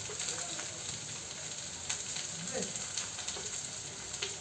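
Food sizzling in a hot frying pan, with a few light clicks from a utensil being stirred in it.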